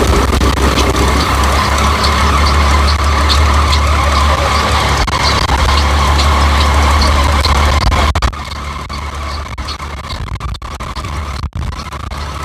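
Rice combine harvester's engine and unloading machinery running loud and steady with a faint rhythmic ticking, while paddy is unloaded onto a lorry. About eight seconds in, the sound drops noticeably and keeps running more quietly.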